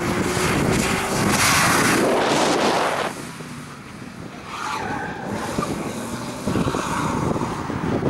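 Audi 90 quattro B2's five-cylinder engine working hard as the car is thrown around a cone course on a wet surface, with tyre noise. It is loud for about three seconds, eases off, then picks up again near the end.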